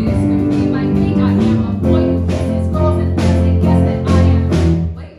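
A woman singing a show tune into a microphone, accompanied by an electric keyboard. The music stops abruptly near the end.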